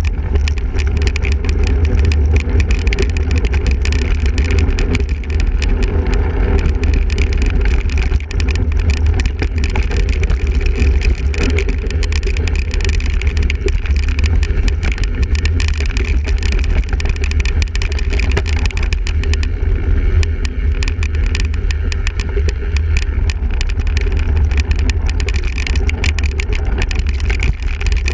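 Steady low rumble of wind and riding noise on a camera carried on a single-speed cyclocross bike, with many small rattles and knocks from the bike going over rough ground.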